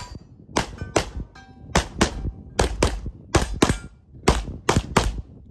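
Rapid gunfire from a competitor shooting a practical shooting stage: about a dozen sharp shots, mostly in quick pairs and threes, stopping about five seconds in.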